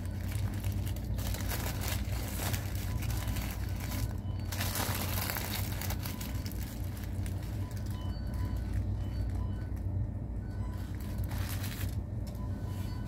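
Paper sandwich wrapper crinkling in the hands, loudest about four to five seconds in and again near the end, over a steady low hum and faint background music.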